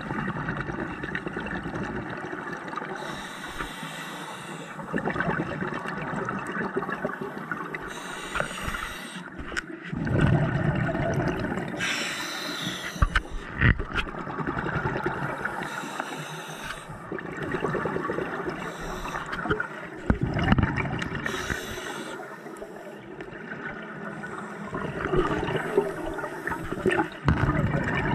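A scuba diver's regulator breathing underwater: a hissing inhale through the demand valve, then a gurgling rush of exhaled bubbles, repeating roughly every four seconds.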